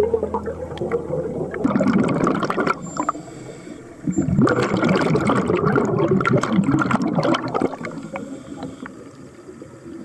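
Scuba diver's exhaled air bubbling out of a regulator, heard underwater as bursts of rushing bubble noise: a short one about two seconds in and a longer one of about three seconds from the middle, then fading.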